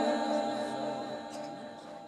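A man's voice in melodic Quran recitation (tilawat), ending a long held phrase that drops in pitch and fades away over about two seconds.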